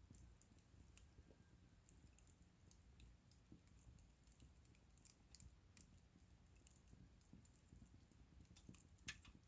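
Faint crackling of a wood bonfire: sparse small pops and ticks, with one slightly louder pop near the end.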